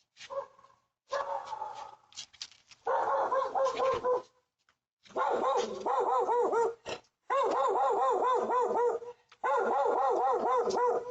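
A dog barking over and over: a few irregular barks at first, then long fast runs of about four to five barks a second with short breaks.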